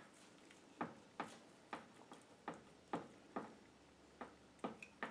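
Fillet knife cutting through a northern pike fillet along its Y bones: a string of about nine faint, sharp ticks at uneven spacing, roughly two a second, as the blade catches on the bones.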